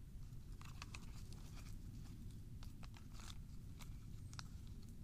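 Wood campfire crackling, with scattered sharp pops and snaps at irregular intervals over a steady low background rumble.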